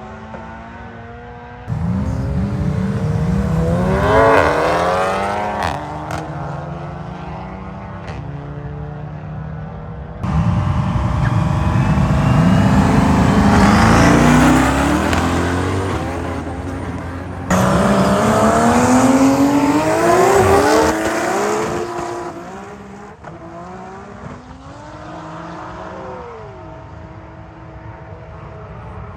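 High-powered cars' engines at full throttle, climbing steeply in pitch as they accelerate hard, in several separate runs that cut in abruptly one after another.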